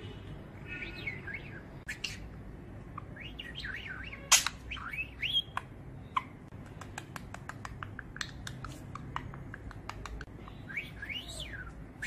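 Budgerigar chattering on a finger: short chirps and rising and falling warbles mixed with many small clicks, with one sharp loud click about four seconds in. The owner presents the chatter as the bird speaking its first word.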